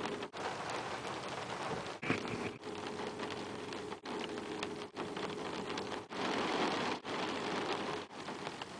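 Steady rain falling during a thunderstorm, a dense patter of drops, cut into short pieces with brief dropouts every second or so.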